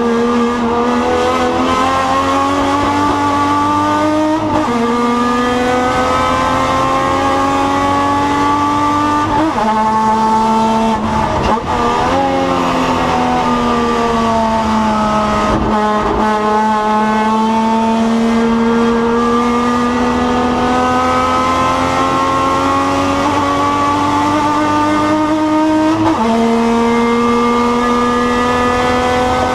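TC Rioplatense race car's engine heard onboard, under hard acceleration: its pitch climbs and drops sharply at gear changes, about four seconds in and again near the end. Around ten to twelve seconds in the pitch jumps about through quick downshifts, falls away under braking, then climbs slowly through a long pull.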